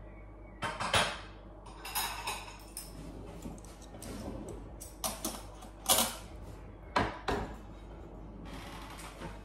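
Kitchenware being handled: a string of sharp clatters and knocks, a few at a time, with the loudest about a second in, around six seconds and twice near seven seconds.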